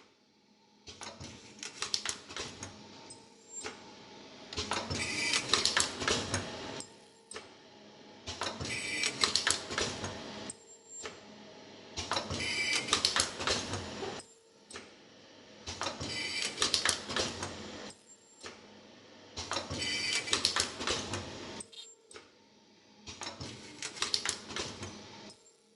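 Automatic metal zipper film welding machine running its cycle over and over: a clattering burst of rapid clicks and knocks about every three and a half seconds, with short quieter gaps between, each burst one pass of welding and cutting film on the zipper.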